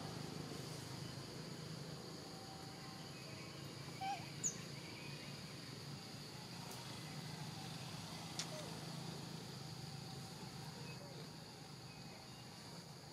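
Outdoor forest ambience: a steady, high-pitched insect drone over a low background hiss, with a few faint, brief sharp clicks about four seconds in and again past the middle.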